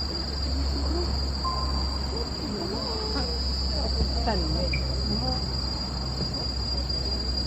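Insects droning in a steady, high-pitched chorus, over a low steady rumble, with faint distant voices in the middle.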